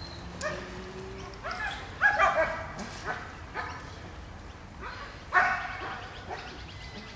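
Dogs barking in short bursts, loudest in a run of barks about two seconds in and again just after five seconds.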